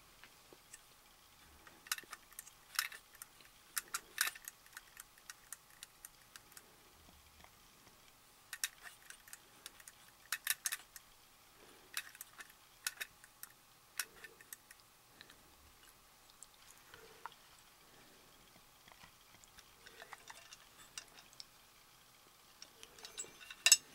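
Irregular small metallic clicks and taps from the exposed gear movement of a 1960s Creative Playthings wind-up alarm clock as it is handled, coming in uneven clusters rather than a steady tick, with the loudest click near the end.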